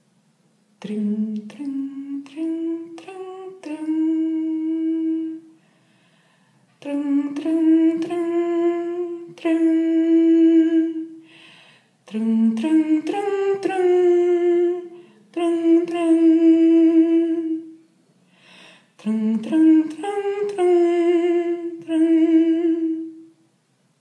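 A woman humming a simple wordless tune in four phrases, each climbing in a few short notes to a long held note, with short pauses between them.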